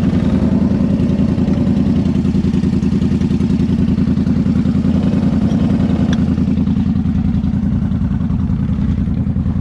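Off-road vehicle engine idling steadily close by, with a fast, even pulse.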